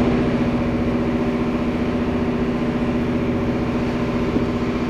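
An engine idling steadily, a constant even hum.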